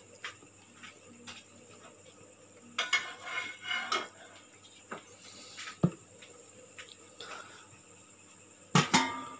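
A plastic spoon stirring coffee and sugar in a small plastic cup, scraping and tapping against its sides, mixed until dissolved. A few sharper knocks, the loudest near the end.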